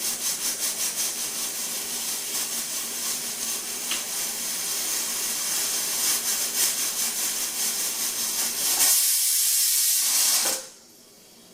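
Stovetop pressure cooker whistling: steam hissing out past the counterweight in quick pulses, about four a second, then a louder steady blast of steam about nine seconds in that cuts off suddenly. This is the cooker's second whistle, the release of built-up pressure that marks one stage of cooking dal.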